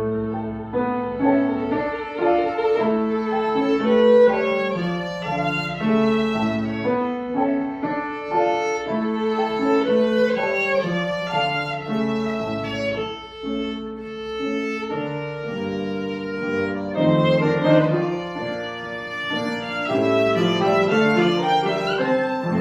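A bowed string instrument playing a classical melody, the notes moving quickly and continuously.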